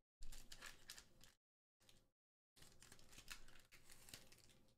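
Foil trading-card booster-pack wrapper being torn open and crinkled in three short bursts of crackling, the first starting sharply and loudest.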